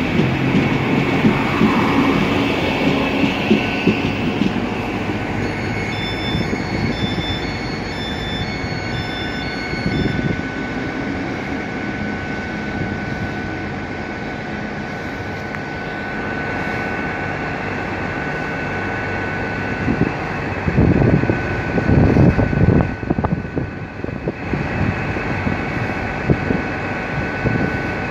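Passenger train running along the platform, with wheel-on-rail rumble and clatter that fades over the first ten seconds. A string of short high beeps sounds partway through, and a steady high whine carries on afterwards, with a few louder low rumbling surges near the end.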